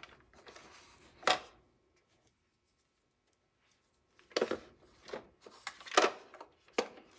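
Huina 1582 RC dump truck being handled and tipped over, giving a single clack and then a run of irregular clicks and rattles. Something loose inside is rattling.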